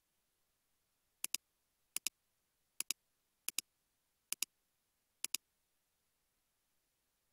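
Computer mouse button clicked six times, each click a quick double tick of press and release, roughly once every second.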